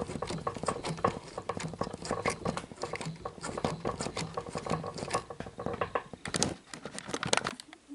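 Loading mechanism of a Sony SL-HF450 Betamax deck turned by hand through its belt to move the cassette basket: a dense, irregular run of small clicks and ticks from the gears and basket.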